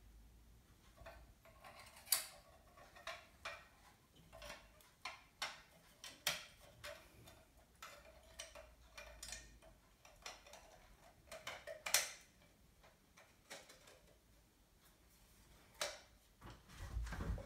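Faint, irregular clicks and taps of a recessed downlight fitting and its lamp being handled and fitted together, small plastic and metal parts knocking. The sharpest clicks come about two seconds in and about twelve seconds in, with a duller thump near the end.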